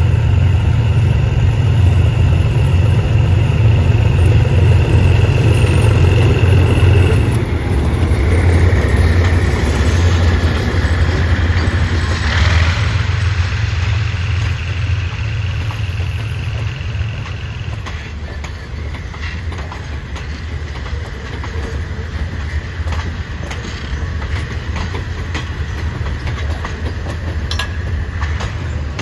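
Diesel locomotive hauling a passenger train past close by, its engine a loud low drone with a high steady squeal over it for about the first 18 seconds. Then the passenger coaches roll past more quietly, wheels clicking over the rail joints.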